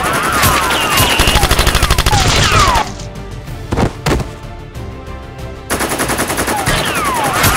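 Rapid automatic gunfire sound effects with falling, whistling zaps. About three seconds in the firing stops, with two single shots in the quieter gap, and the rapid fire starts again about two and a half seconds later.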